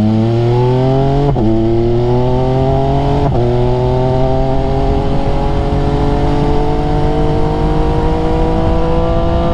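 MV Agusta F3's inline three-cylinder engine, fitted with Termignoni race headers, accelerating up through the gears. The pitch climbs, drops at an upshift about a second in and again about three seconds in, then rises slowly through a long pull in the higher gear.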